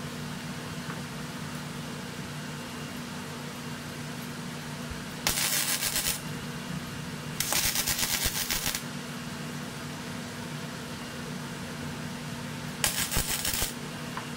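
MIG welder arc crackling in three short bursts, about five, seven and a half, and thirteen seconds in, as the outlet flange of an exhaust manifold is welded. A steady hum runs underneath.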